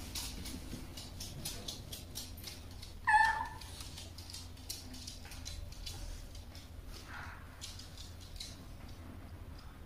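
Shiba Inu's claws clicking on a wooden floor as it shifts about, with one short, high whine about three seconds in.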